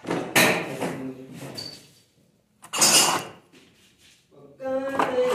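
Metal hand tools clattering in two short bursts, about half a second in and again around three seconds in.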